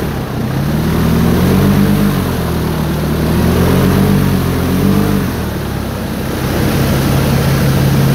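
A 500-horsepower airboat's engine and propeller running, the revs dipping and climbing again several times as the throttle changes.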